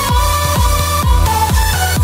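Background electronic dance music: a kick drum about twice a second, each beat dropping in pitch, under held synth notes.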